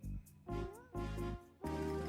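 Background music: a tune of short pitched notes over a bass line, with no speech.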